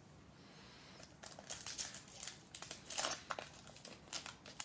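Foil wrapper of an NBA Hoops trading-card pack crinkling as it is torn open by hand: short, irregular crackles starting about a second in.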